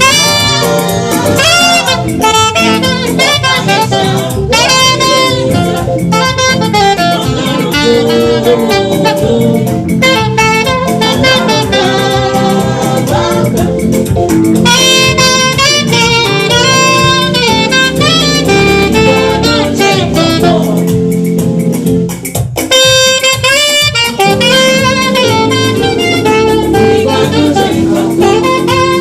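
Gospel music led by a saxophone playing a gliding melody over a band accompaniment, dropping back briefly about two-thirds of the way through.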